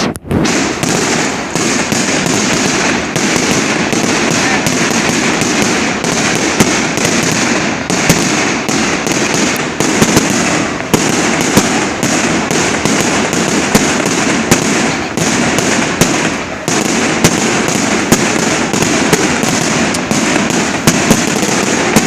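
Fireworks display: a loud, dense, unbroken crackle with many sharp bangs, several a second, layered over it.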